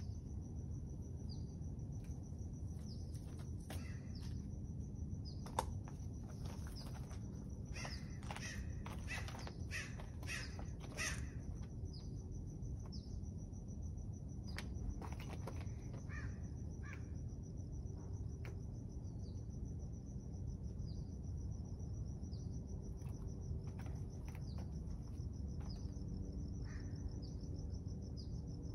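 Garden ambience: birds call now and then over a steady high-pitched drone. A burst of rustling and clicks comes from about eight to eleven seconds in.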